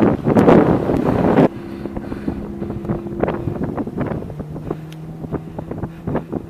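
Heavy wind buffeting on the microphone that stops abruptly about a second and a half in. It leaves the Ferrari F430 Spyder's V8 running steadily at a low hum, with light wind crackle on the microphone; the engine's note shifts lower about four seconds in.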